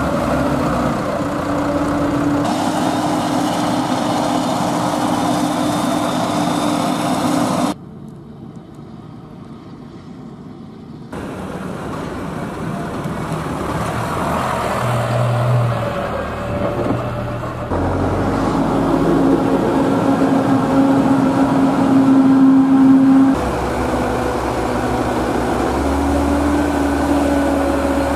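Massey Ferguson tractor diesel engines running with a steady drone, across several cut-together shots. A little before a third of the way in, the level drops suddenly to a quieter stretch of about three seconds, then the engines come back louder.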